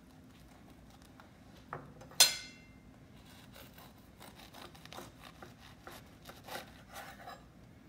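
A kitchen knife sawing through a crusty bread roll on a wooden cutting board: a run of short, irregular rasping and crackling strokes through the second half. Before it, about two seconds in, a soft knock and then a sharp clink, the loudest sound.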